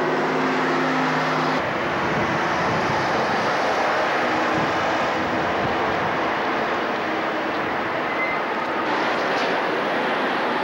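Steady rushing noise of city street traffic, with a low engine hum that stops about one and a half seconds in.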